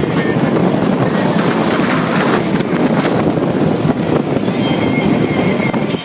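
Steady rushing noise of a boat underway, with wind buffeting the microphone.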